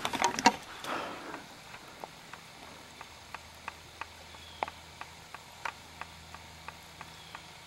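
A shot deer running off through dry leaves: a burst of loud crashing and crackling that fades away within the first second and a half. Then only sparse, faint crackles of leaves.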